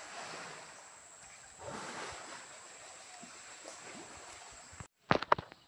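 Steady rush of flowing stream water, swelling briefly about two seconds in. Near the end the sound cuts out for a moment, then a few sharp knocks follow.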